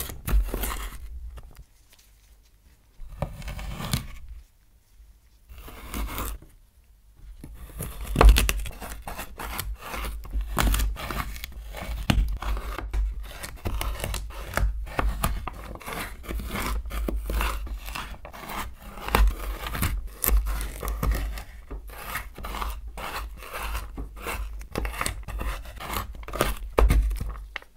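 Chef's knife cutting raw sweet potato on a wooden cutting board, each stroke a crisp crunch through the firm flesh. At first a few separate cuts with pauses between them, then from about eight seconds in quick, steady chopping as the slices are cut into strips and small cubes.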